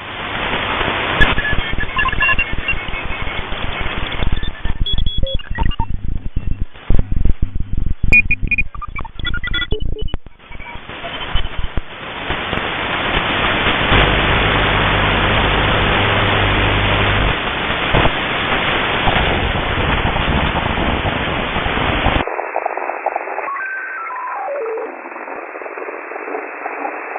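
Shortwave radio receiver putting out static and interference. For about the first ten seconds it is choppy and broken, with brief whistles, then it settles into steady hiss. About 22 seconds in the sound abruptly turns thinner, and a few falling whistles come through as the receiver is tuned.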